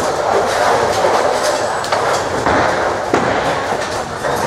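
Tenpin bowling alley din: balls rumbling down several lanes and pins clattering, with a string of sharp crashes and knocks throughout.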